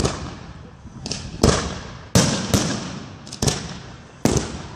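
Aerial fireworks bursting overhead: a string of about six sharp bangs, irregularly spaced half a second to a second apart, each with an echoing tail.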